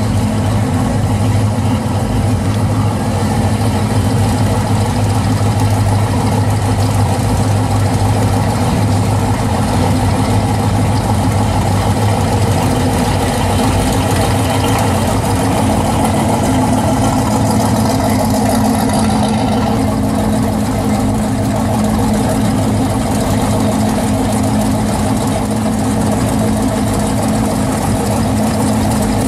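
Modified 1966 Chevrolet Nova's engine idling steadily as the car creeps forward, a deep, even rumble. Near the end a 1969 Chevelle SS pulls up idling behind it.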